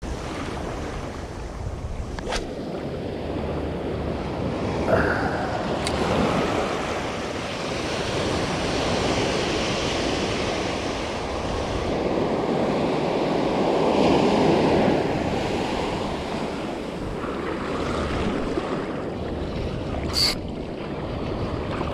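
Ocean surf breaking and washing on the shore, swelling loudest a little past halfway, with wind buffeting the microphone and a few short clicks.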